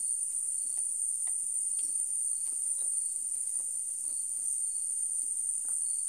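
Crickets chirring steadily at a high pitch, with faint irregular ticks underneath.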